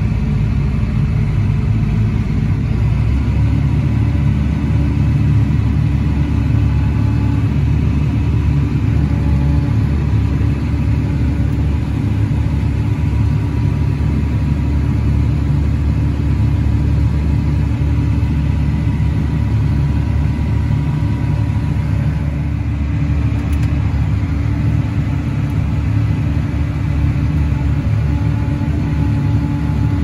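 A large vehicle's engine running steadily at constant speed, a continuous low drone with steady higher hums over it; the sound shifts slightly about three seconds in and then holds.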